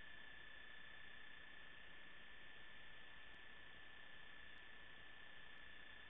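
Faint, steady electronic hiss with a constant high-pitched whine; no sounds from the game itself.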